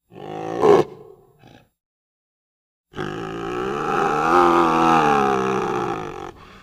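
Indochinese tiger calling: a short, sharp roar in the first second, then after a pause one long, drawn-out roar that swells and fades, ending near the end.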